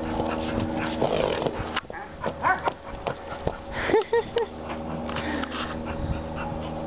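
Dogs whining and yipping in short calls, a cluster about two and a half seconds in and another about four seconds in, with scattered light knocks.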